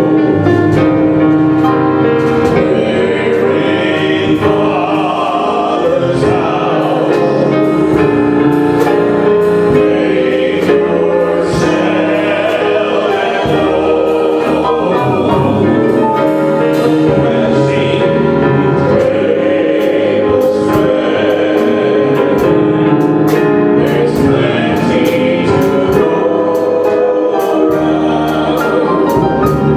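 A group of voices singing a slow church worship song together, with musical accompaniment, holding long notes without a break.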